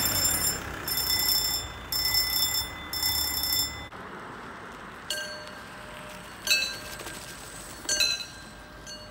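Level crossing warning bell ringing in a steady on-off rhythm, about once a second. About four seconds in it cuts to another crossing's bell, striking single high dings a little over a second apart.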